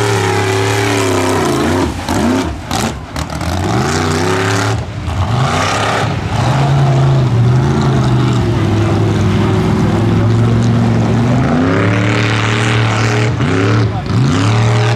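A lifted Chevrolet Blazer mud truck's engine revving hard under race throttle, its pitch climbing and falling back again and again, with the throttle dropping off briefly about two and five seconds in.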